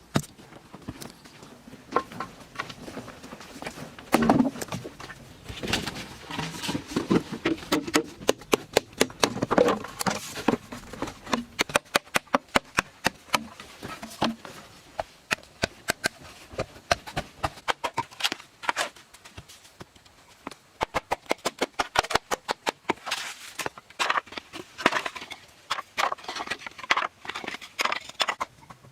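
A long series of sharp knocks and clicks, coming in fast runs of several strikes a second.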